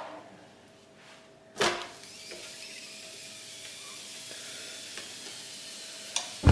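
A crepe is flipped onto the hot plate of a Cecotec electric crepe maker with a brief slap of the spatula about a second and a half in, and its underside then sizzles steadily on the hot plate.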